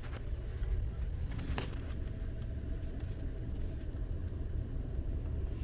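Steady low rumble of a vehicle in motion, with a faint short tick about one and a half seconds in.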